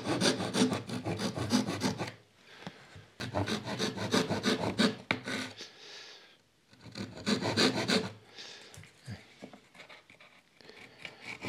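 Thin hand saw cutting across a small wooden lattice bar in quick short strokes, in three bouts with brief pauses between, quieter near the end. The saw is cutting the shoulder of a tenon on the bar.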